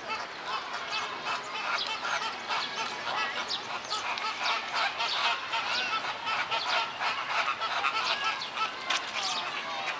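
A flock of American flamingos honking, many short calls overlapping without a break, busier from about four seconds in.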